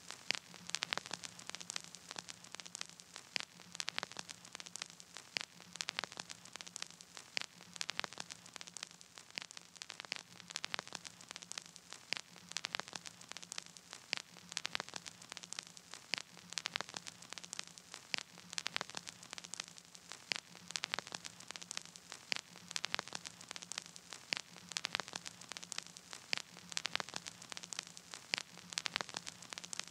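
Crackling static: a steady hiss full of sharp irregular clicks, several a second, over a faint low hum that comes and goes, with no music playing.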